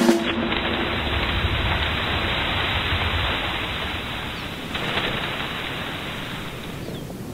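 Wind rushing through snow-laden spruce trees, shaking powder snow off the branches, with a fresh gust about five seconds in.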